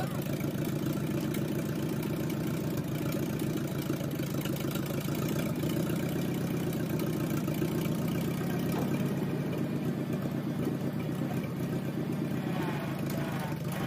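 Engine of a loader idling steadily.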